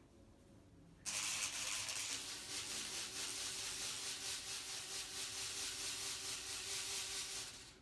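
Homemade bee hummer (rubber band stretched along a popsicle stick, with a folded index card clipped over it) whirled on a string, giving a steady buzz with a rushing hiss. The buzz wavers slightly in loudness. It starts about a second in and stops just before the end. The card amplifies the buzz of the vibrating rubber band.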